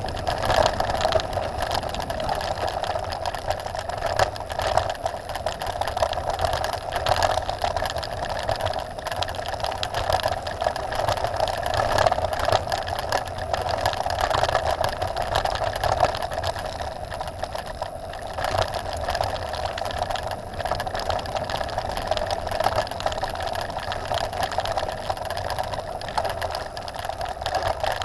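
Mountain bike rolling fast downhill on a dirt and gravel track: tyres crunching over the surface, the bike rattling and knocking over bumps, with a steady mid-pitched buzz and wind on the microphone.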